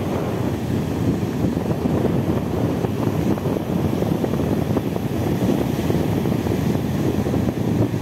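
Wind buffeting the microphone with a steady low rumble, over the wash of sea waves breaking and running up the beach.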